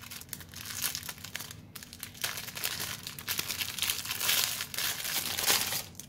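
Thin clear plastic wrapping crinkling and rustling between the fingers as it is handled and opened, louder from about two seconds in and stopping suddenly near the end.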